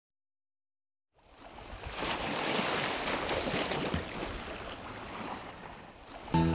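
A steady rush like surf breaking fades in after about a second of silence. Music starts sharply near the end.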